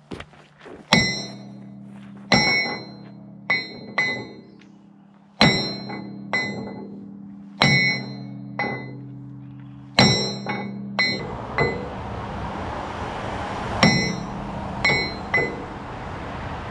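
Sledgehammer blows on a stuck steel linkage pin of an excavator, about a dozen irregular strikes, each a sharp clang that rings on. A steady rushing noise joins about two-thirds of the way in.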